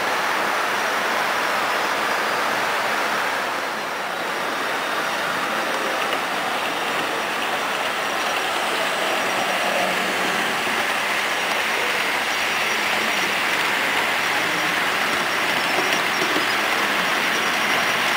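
HO scale model trains rolling along the layout's track: a steady whirring rattle of small wheels on the rails, mixed with constant background noise.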